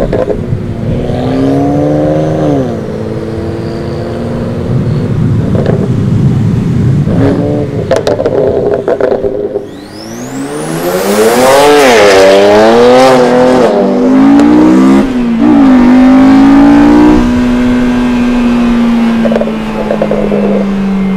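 Tuned twin-turbo BMW 335i (N54 inline-six) revving hard, its pitch climbing and dropping back several times as if through gear changes, loudest from about ten seconds in. In the last few seconds the engine note holds and slowly falls. A few sharp cracks come in the first eight seconds, and a high whistle sweeps upward about ten seconds in.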